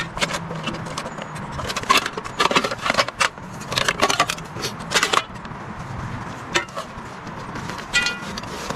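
Clinking, rattling and knocking of gear being handled: a busy run of short clicks and knocks over a low steady hum, with a brief pitched tone near the end.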